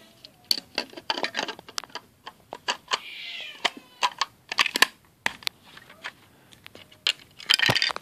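Plastic Lego bricks clicking and knocking as the parts of a Lego puzzle box are handled and a drawer and pin are pushed into place. A brief high-pitched wavering cry comes about three seconds in, and a louder rattle near the end.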